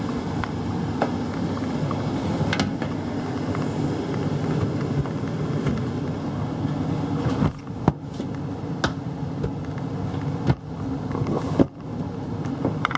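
Gas furnace air handler running with a steady hum and rumble, broken by a few light clicks.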